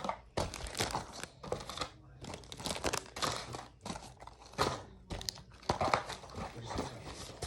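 Packaging crinkling and rustling in irregular bursts as items are handled and taken out of a fishing tackle box.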